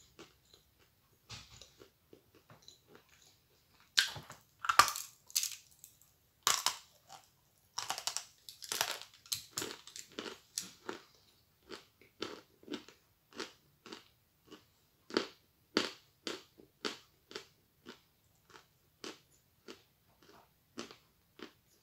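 Close-up chewing of a mouthful of chalk: short crunches and wet mouth sounds, a dense run of louder crunches from about four to eleven seconds in, then steady chews about two a second.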